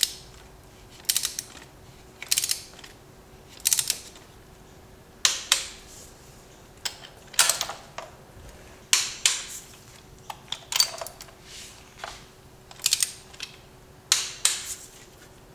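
Ratchet wrench clicking in short bursts, about a dozen strokes spaced one to one and a half seconds apart, as bolts are run back in while the engine is reassembled.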